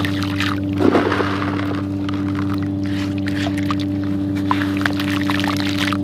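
Crumbled sand-cement falling into a tub of water, a gritty pour and splash about a second in, followed by scattered small crackles and clicks as the wet chunks are handled. A steady low hum runs underneath.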